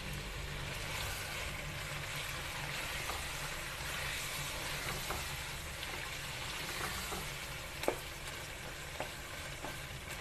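Quail pieces frying with tomatoes and spices in hot oil in a wok, a steady sizzle, while a spatula stirs them, tapping the pan with a few sharp clicks, the loudest about eight seconds in. A steady low hum runs underneath.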